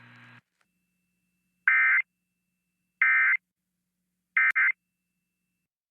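Three short bursts of Emergency Alert System SAME digital data tones, the end-of-message code that closes an EAS alert, about 1.3 seconds apart. A faint steady hum cuts off shortly before the first burst.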